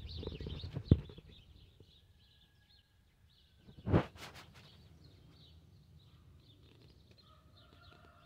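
Birds chirping faintly in the background. A few sharp handling knocks come in the first second, and a louder clatter of knocks comes about four seconds in.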